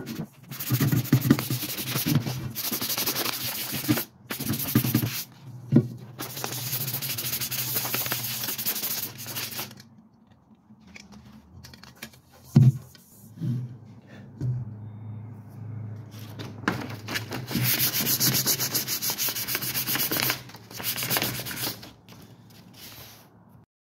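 Sandpaper rubbed back and forth over the painted shell of a replica M1 helmet, scuffing the smooth paint rough so new paint will stick. The sanding runs in long stretches with a pause in the middle, where there are a couple of short knocks.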